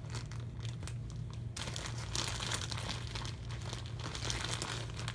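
Plastic packaging crinkling and rustling as it is handled. A few scattered crackles come first, then from about a second and a half in the crinkling turns dense and continuous, over a steady low hum.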